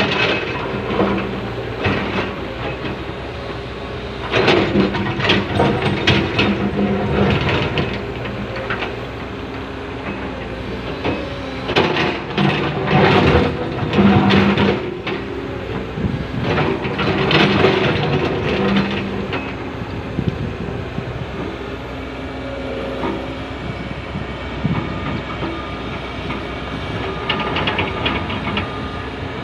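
Komatsu excavator with its diesel engine running under load while the bucket scrapes and knocks against rock, in repeated bursts of grinding and clanking.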